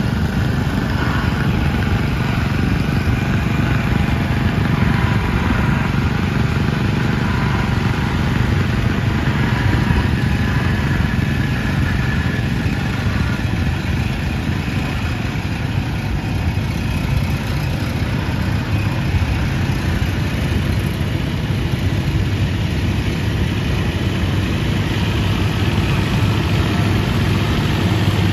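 Small tractor engines running steadily as a line of vintage and garden tractors drives slowly past, one after another.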